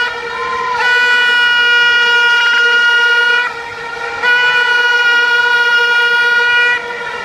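Handheld party horn blown close by in long, loud, steady blasts of about two and a half seconds each, with brief softer dips between them.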